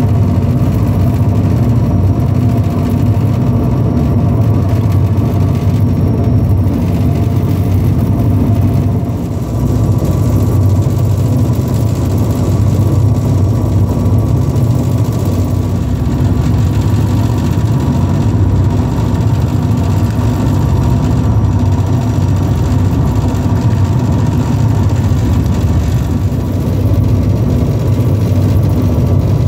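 Hydrofoil's engines running steadily at speed, a loud, even drone with a low hum, heard from inside the passenger cabin.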